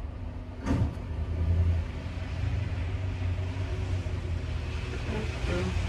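Plow truck's engine running with a steady low drone as it backs up the driveway, with one sharp knock a little under a second in.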